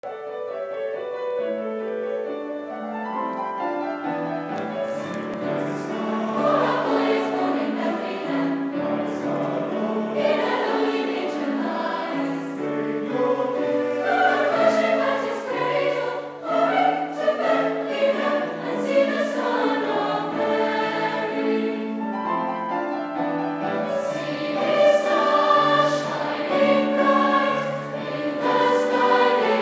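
Youth chamber choir singing a carol in several voice parts, sustained chords moving from note to note.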